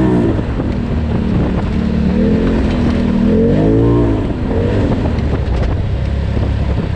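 Polaris RZR Turbo side-by-side's turbocharged engine under way, running steady, then revving up and easing off again about two to four seconds in, with the rumble of the machine moving over the trail throughout.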